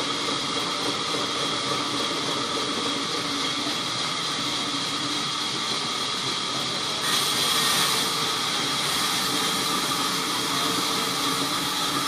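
Sawmill band saw running and cutting through a rain tree log: a steady hissing whine with a few held tones. About seven seconds in, the cutting noise suddenly gets louder and sharper.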